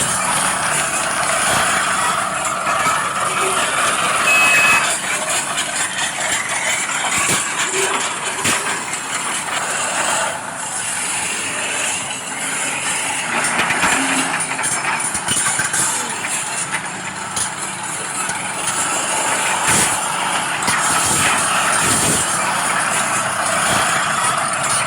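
Scale radio-controlled construction machines (excavator and bulldozer) running: a steady whirr of small electric motors and gearboxes working, with a brief high beep about four and a half seconds in.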